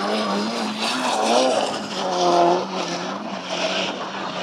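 Rallycross car engines running, their pitch wavering up and down over a steady noisy hiss, loudest about two seconds in.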